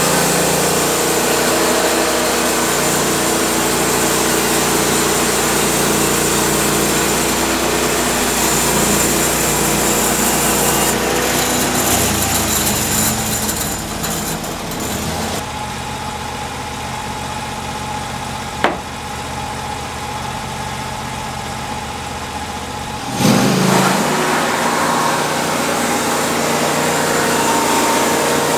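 Sawmill's engine running steadily while cypress is sawn into boards. About halfway through it drops quieter and changes tone for several seconds, with a single sharp click, then comes back up to full level.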